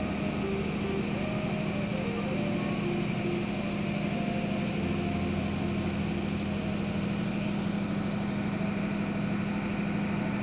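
A boat engine running steadily, a constant low drone with a strong even hum.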